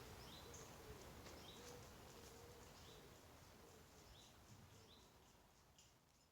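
Faint woodland ambience: a small bird repeats a short high call about once a second over a low, even hiss of background noise.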